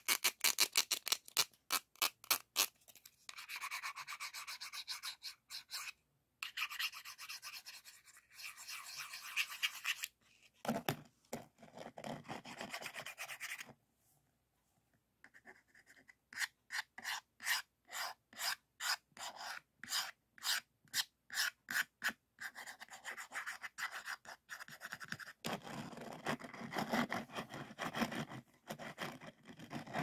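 Diamond-painting work: plastic resin drills clicking and rasping in a grooved plastic tray as a drill pen picks them up and taps them down, in runs of quick sharp clicks alternating with stretches of scraping. Near the end a plastic block rubs over the drilled canvas.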